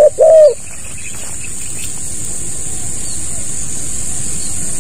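Spotted dove cooing: a short note then a longer arched coo at the very start, closing its phrase. After it comes a steady rushing noise that slowly swells, with a constant high-pitched hiss over it.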